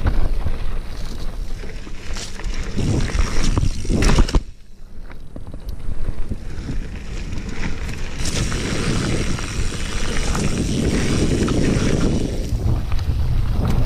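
Heavy wind buffeting on the microphone, with rumbling and rattling from a hardtail mountain bike rolling over a dirt trail. The noise dips briefly about four and a half seconds in.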